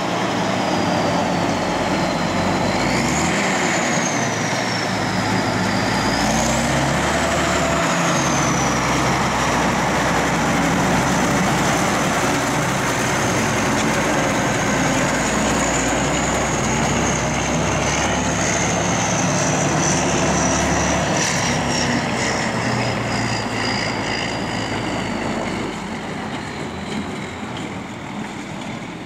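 RÁBA-Steiger articulated tractor's diesel engine running, with a high whistle that rises and falls in pitch as the revs change. The sound fades somewhat near the end.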